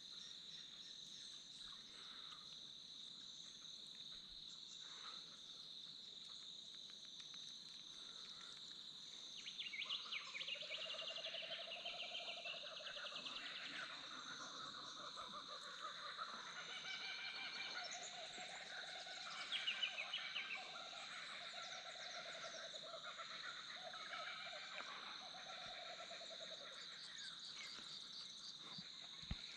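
Cicadas droning in a steady high whine. About ten seconds in, a chorus of rapid, pulsed animal calls joins them and keeps repeating until near the end.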